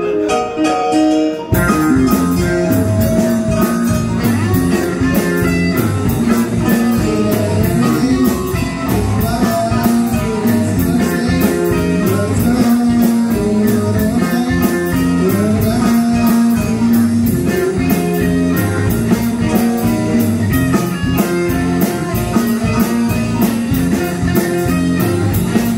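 Live rock band playing, electric guitar out front over drum kit and bass; after a sparser opening, the drums and full band come in about a second and a half in and play on steadily.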